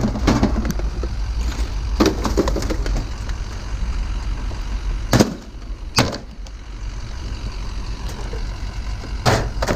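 Pieces of scrap metal clanking as they are unloaded: sharp knocks about two seconds in, twice around five and six seconds, and again near the end. Under them is a steady low engine rumble.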